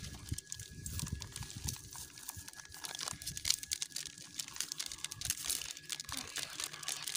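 Small plastic spice-mix sachets crinkling and rustling as they are handled, shaken and squeezed to empty masala powder into a bowl.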